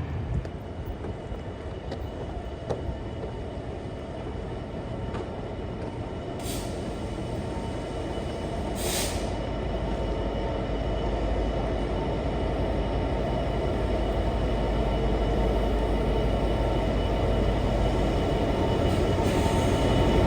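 A train approaching, its rumble growing steadily louder, with faint steady high-pitched whines over it. Two brief hisses come about six and nine seconds in.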